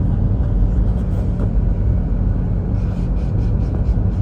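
Steady low rumble of a moving vehicle, engine drone with road or travel noise, holding even throughout.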